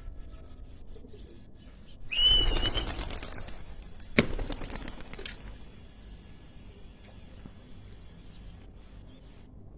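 Domestic pigeons' wings flapping in a sudden flurry about two seconds in, with a brief high squeak at its start, fading out over the next few seconds; a single sharp click about four seconds in.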